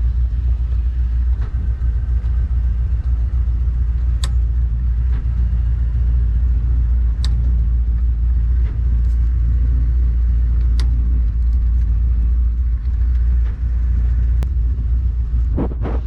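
Inboard V-drive wake boat's engine running at idle, a steady low rumble, with a few faint clicks.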